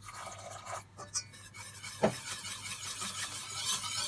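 Wire whisk beating béchamel sauce in a stainless steel pot as warm milk is poured in: a continuous scraping swish that grows stronger toward the end, with a sharp knock against the pot about two seconds in.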